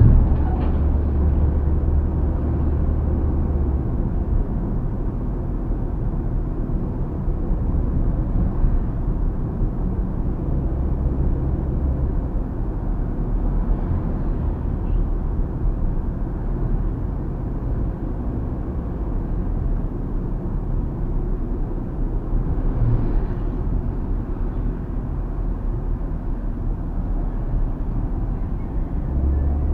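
Steady road and tyre noise with a low engine hum inside the cabin of a moving Mitsubishi Xpander on a fairly smooth road, the doors fitted with added rubber seals against wind noise.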